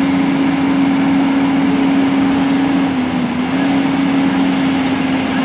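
Heavy diesel machinery running steadily with a strong hum, its pitch dipping briefly about three seconds in.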